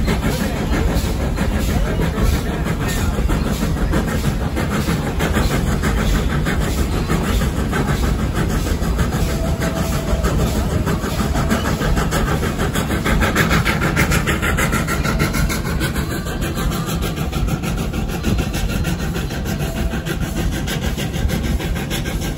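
Narrow-gauge steam train running, heard from an open car just behind the locomotive: a steady rumble and rattle of the cars and wheels on the rails, with a fast, even beat.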